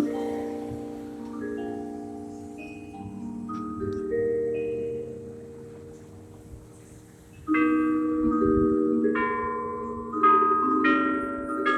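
Church bells ringing for noon: several bells of different pitch struck one after another, their notes overlapping and ringing on. The ringing thins out a little past the middle, then a loud cluster of strikes comes about 7.5 s in and again near 10 s.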